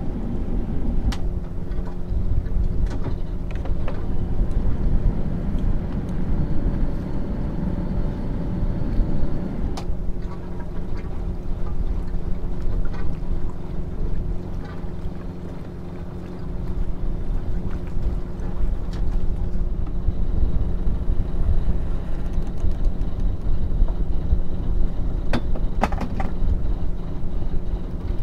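Oyster 485 sailboat's inboard diesel engine running steadily at low speed under power, a low even hum that eases about ten seconds in. A couple of light knocks come near the end.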